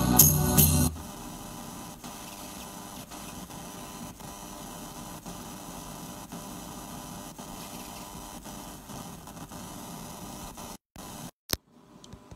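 Percussive music with tambourine cuts off abruptly about a second in, leaving a steady hiss of static with a low mains hum. Near the end the sound drops out twice, with a sharp click between the dropouts.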